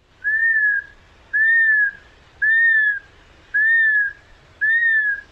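Gray hawk calling: a series of clear whistled notes, each rising slightly then falling away, repeated about once a second, five in all.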